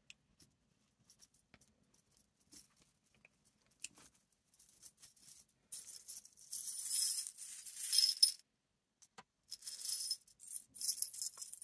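A handful of small metal charms clinking and jingling inside a small plastic bag and being tipped out into cupped hands. After a few quiet seconds with faint clicks, the jingling comes in two spells, about six seconds in and again near the end.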